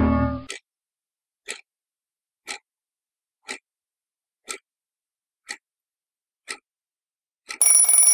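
A loud rushing noise cuts off about half a second in, then a wind-up alarm clock ticks once a second. Near the end its alarm starts ringing loudly.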